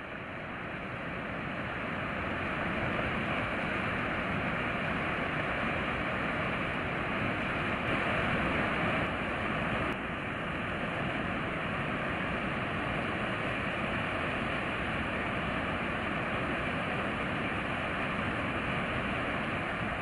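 Fast, flood-swollen muddy river rushing, a steady noise of turbulent water that fades in over the first few seconds.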